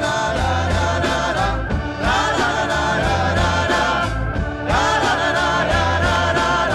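Rock song played from a vinyl record: sung vocal phrases over bass and drums, a new phrase coming in about every two and a half seconds.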